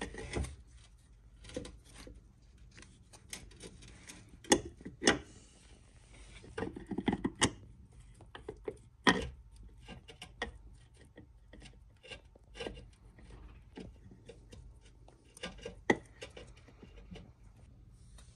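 Scattered clicks, knocks and rubbing of metal and rubber as a new front engine vacuum mount is worked into place by hand and a nut is started on its top stud, with a few sharper knocks among them.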